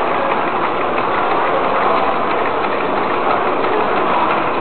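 Steady mechanical clatter of many small model engines running together, a dense fast ticking over a constant hiss.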